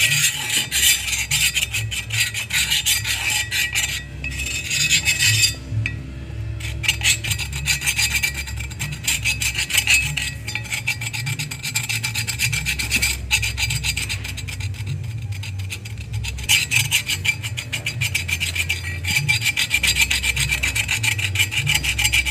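A steel screwdriver scraping the inside of a car brake drum in rapid, rasping strokes, with a few brief pauses.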